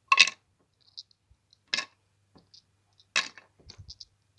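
Small hard awards clinking as they are put into a container: three sharp clinks about a second and a half apart, with lighter ticks and rattles between.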